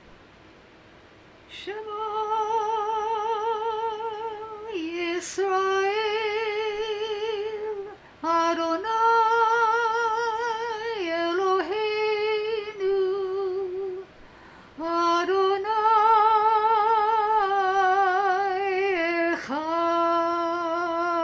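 A woman singing solo in a slow melody of long held phrases with a wide vibrato, each phrase dipping in pitch as it ends.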